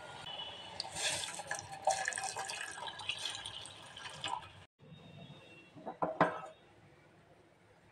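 Milk poured in a stream into boiling tea in a steel pot, splashing and bubbling, cutting off abruptly partway through. Then fainter bubbling with two brief knocks.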